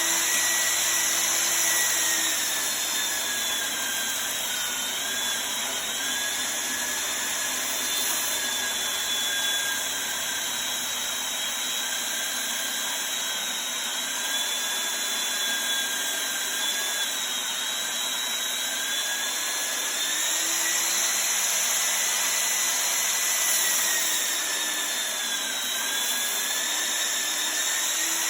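Homemade 2x72 belt grinder driven by a Makita 4x24 belt sander, running with a loud, steady high whine. The whine's pitch dips briefly a few times and recovers.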